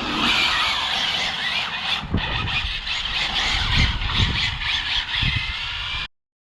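Tyres of an Arrma Felony 6S RC car squealing as it drifts, over the whine of its brushless motor, with a few low thumps. The sound cuts off abruptly near the end.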